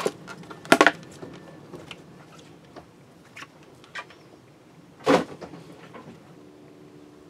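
Plastic bottle being squeezed and handled over a sink, giving a series of sharp clicks and knocks, loudest about a second in and again about five seconds in. A steady low hum starts near the end.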